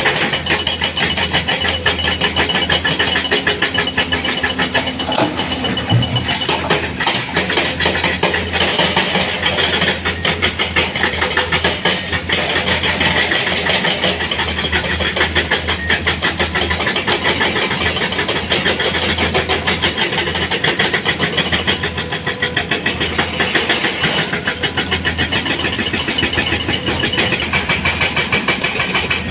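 Komatsu PC210 hydraulic excavator's diesel engine running steadily under load as it digs and loads rock, with a fast, even engine beat throughout.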